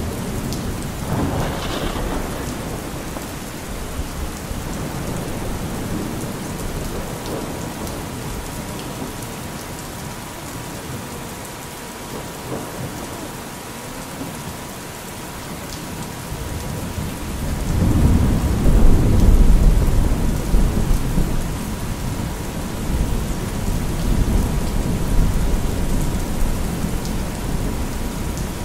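Steady rain with thunder, under a constant 963 Hz sine tone. About two-thirds of the way through, a long low roll of thunder swells and then slowly fades.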